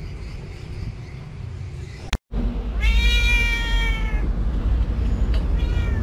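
Domestic cat meowing once, a single call of about a second and a half that falls slightly in pitch, over a steady low rumble.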